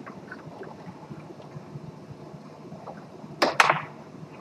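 Play on a Tornado foosball table: a low background hum with faint clicks, then about three and a half seconds in a quick run of loud, sharp clacks as the hard ball is struck by the rod men and hits the table walls.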